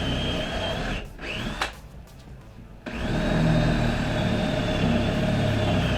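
Electric drill boring a 3/8-inch pilot hole for a half-inch lag bolt, its motor running with a steady whine. It stops about a second in, gives a short blip, then runs steadily again from about halfway through.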